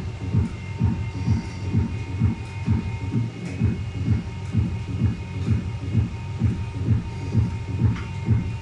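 Deep bass beat of music through the car audio amplifier test rig, low thumps about twice a second, with faint steady high whining tones above.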